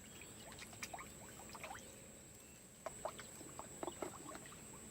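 Faint, scattered small splashes and drips of pond water, a few sharper ones about three to four seconds in, over a steady high-pitched whine.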